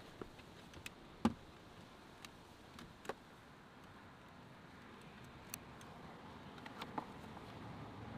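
Scattered clicks and knocks of a seat belt's metal latch and webbing against a plastic child car seat as the belt is threaded and fastened for a rear-facing install, with one louder knock about a second in. A faint steady rush of wind and traffic lies underneath.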